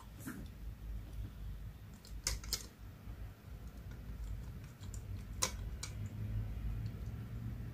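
Light plastic clicks and taps from fitting the trigger and gas lever back into the open plastic casing of a utility lighter; a few sharper clicks stand out about two and a half and five and a half seconds in.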